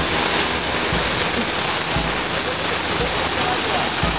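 A steady rushing spray hiss, a fire being doused to put out a fired firework. It starts abruptly and holds at an even level throughout.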